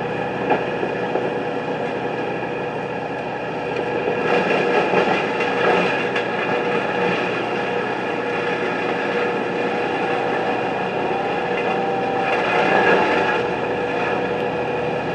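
A heavy engine-driven machine running steadily with a droning hum, growing louder twice for a second or two.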